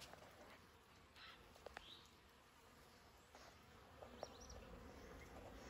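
Faint buzzing of honeybees flying about the hive entrances on a mild winter day.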